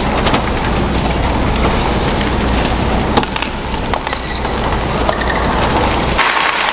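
Badminton rally: a few sharp racket strikes on the shuttlecock, spaced about a second or more apart, over steady arena crowd noise. The low rumble of the hall drops away near the end as the rally ends.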